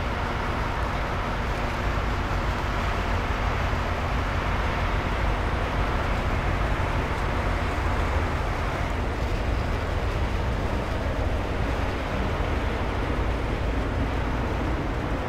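Train of auto rack cars rolling past: a steady, unbroken rumble of wheels on rail with a low hum underneath.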